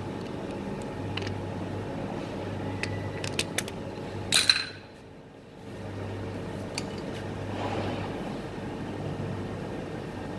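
Metal lathe running with a steady hum while a spinning rod is rubbed against a second rod to friction-weld them. A few sharp metallic clicks come about three to four seconds in, then a loud clink. The hum then drops away for about a second before it resumes.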